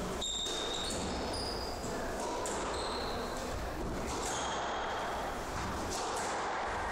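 Squash rally: a squash ball struck by rackets and smacking off the court walls in sharp hits every second or two, with short high squeaks of shoes on the wooden court floor.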